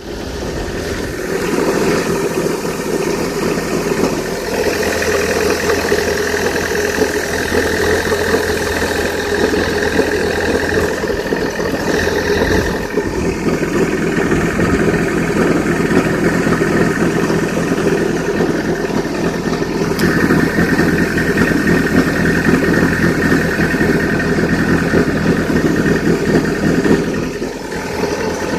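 Lada Kalina 2's VAZ-21126 1.6-litre 16-valve engine idling cold, with an extra higher-pitched noise over the idle that fades and returns. The noise appears only on a cold start and persists after the timing belt, idler and tensioner pulleys and water pump were replaced; the owner suspects the alternator or the tensioner.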